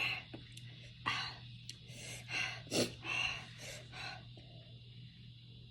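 Close-up mouth sounds of a person eating spicy som tam: short sharp breaths, smacks and sucking in irregular bursts, over a steady low hum.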